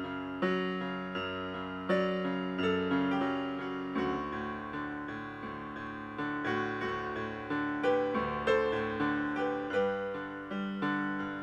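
Solo piano music, a gentle melody over chords, played as background music.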